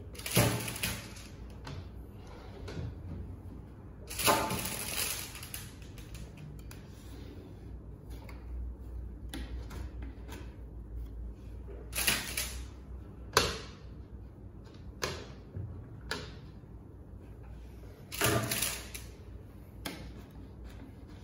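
Short swishing hisses, five stronger ones spread out with fainter ones between, from wet window-tint film being fitted and worked against a car door's glass.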